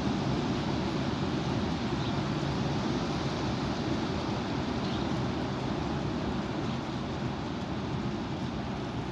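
High wind blowing across the microphone: a steady low rumble of rushing air.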